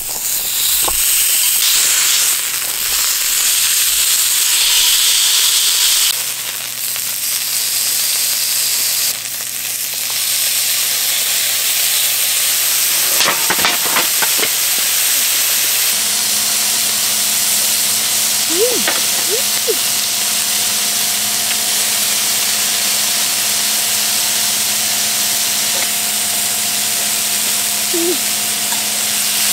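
Slices of beef sizzling on a small domed grill pan over a solid-fuel burner: a loud, steady frying hiss, with a few short clicks about halfway through.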